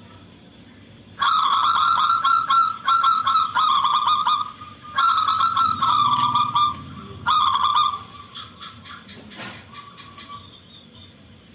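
A local zebra dove (perkutut lokal) singing its high-pitched song: rapid stuttering trilled coos in three phrases, starting about a second in, the last phrase short, then a few fainter notes.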